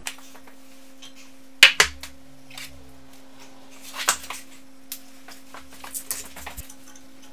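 Hydraulic hose and its metal fittings being handled against the steel frame of a forging press: sharp metallic clinks and knocks, two close together about a second and a half in, another near four seconds, and a cluster of small taps near the end. A faint steady hum sits underneath.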